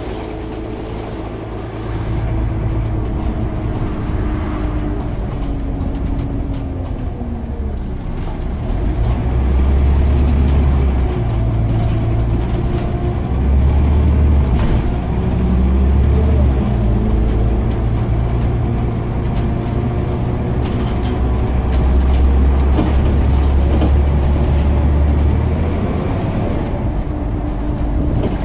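Scania OmniCity single-deck bus on the move, heard from inside the passenger saloon: the diesel engine and driveline running with road noise. The engine note falls over the first few seconds, and the bus gets louder from about nine seconds in.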